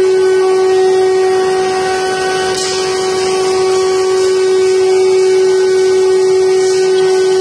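The spindle of a 5-axis CNC wood carving machine running with a steady high-pitched whine while its small carving bit cuts a wooden leg turned on the rotary axis. Brief hissing swells of the cut come twice, about two and a half seconds in and near the end.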